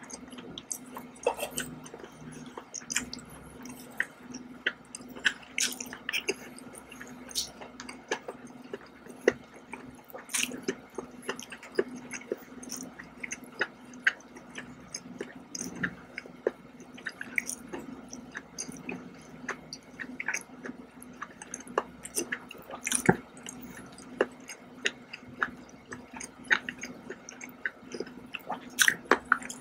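Close-up eating sounds: scattered wet clicks, smacks and drips as seared scallops in sauce are handled with wooden chopsticks and chewed, over a faint steady hum.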